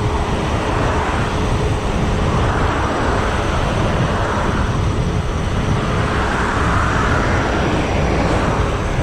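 Wind rushing and buffeting over the microphone, mixed with the tyre noise of a dirt jump bike coasting fast downhill at around 38 km/h, with a faint steady hum running under it.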